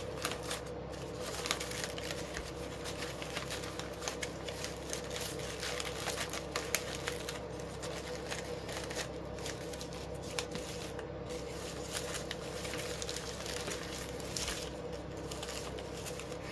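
Polypropylene ribbon crinkling and rustling as the loops and tails of a bow are handled and arranged, with many small irregular crackles.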